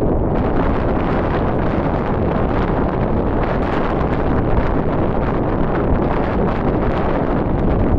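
Wind buffeting the microphone: a loud, steady rush of noise, heaviest in the low end.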